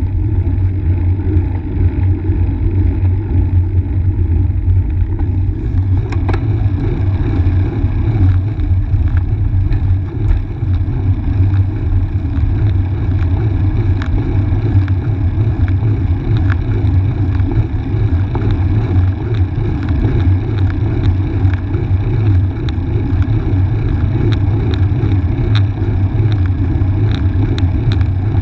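Steady low rumble of wind and road noise on a bicycle-mounted action camera's microphone as a road bike rides along, with scattered light clicks from about six seconds in.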